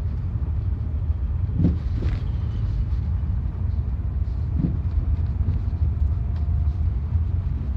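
Lada Vesta driving, with a steady low road rumble and a few short knocks from the front suspension: two close together about a second and a half in, and one more near the middle. The owner puts the knocking down to the front struts or their top mounts.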